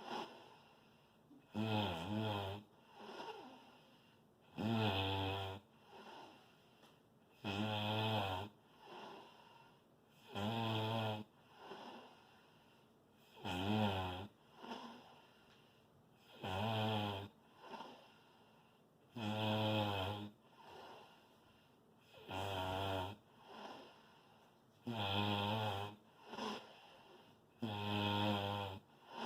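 A person snoring loudly in a steady rhythm, one snore about every three seconds, each loud buzzing snore followed a second later by a softer one.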